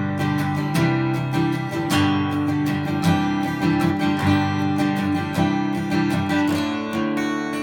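Martin J-40 jumbo acoustic guitar played with strummed chords that ring on. The chords change every second or so.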